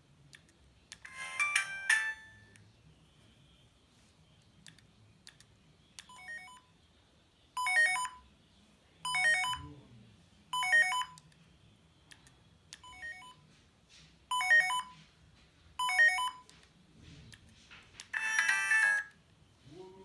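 Siemens S55 mobile phone playing its built-in ringtones and alert tones through its small speaker. A short melodic jingle plays about a second in. Then a repeating beep pattern sounds seven times, roughly every second and a half, and another short jingle plays near the end.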